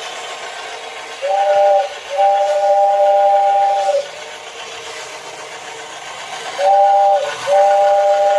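Vintage Japanese battery-operated tin toy train sounding its two-note whistle in a short-then-long pattern, twice, over a steady hiss.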